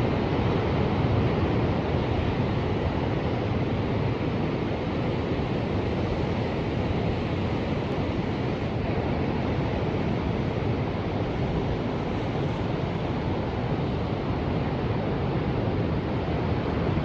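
Ocean waves washing on the shore in a steady rush, swelling slightly about a second in and again near the end, with wind on the microphone.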